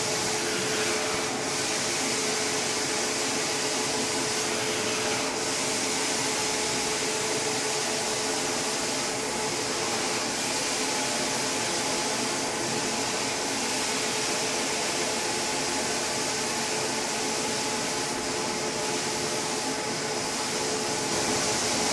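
Carpet steam-cleaning (hot water extraction) machine running, its vacuum sucking through the hose and floor wand as the wand is worked over the carpet: a steady rushing hiss with a steady hum under it.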